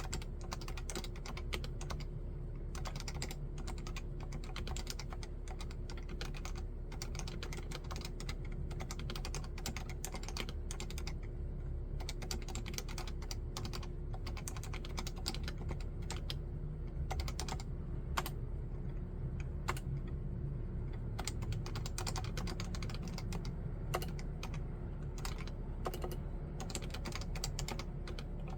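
Continuous typing on a Leopold FC660C, a 65% keyboard with standard (non-silent) Topre electrostatic capacitive switches: a steady, irregular stream of keystrokes with a few louder strokes now and then.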